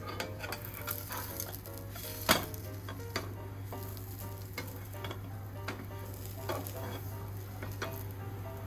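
Microwave oven running with a steady low hum, with irregular crackling and popping from the food inside and one louder pop a little over two seconds in. The hum cuts off at the end.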